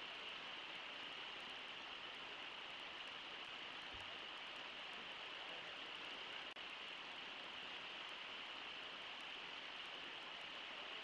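Faint, steady rush of the Brooks Falls waterfall and river, with a momentary dropout about six and a half seconds in.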